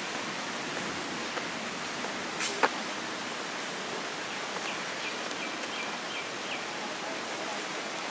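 Steady outdoor rushing noise, with one sharp knock about two and a half seconds in and a short run of bird chirps in the middle.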